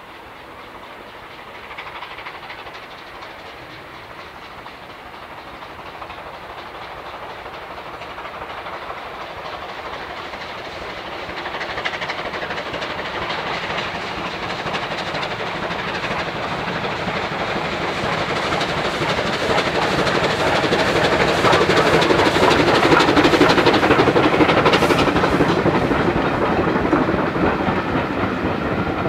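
Hunslet Austerity 0-6-0 saddle tank steam locomotive working hard with a train of coaches, its chuffing growing steadily louder as it approaches. It is loudest about three-quarters of the way through as it passes, then eases slightly as the coaches roll by with a clickety-clack.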